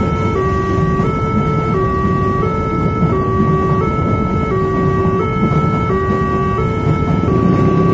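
Railway level-crossing warning alarm sounding a two-tone signal that switches back and forth between a lower and a higher tone about every two-thirds of a second. Underneath it is the steady noise of a passenger train running past over the crossing.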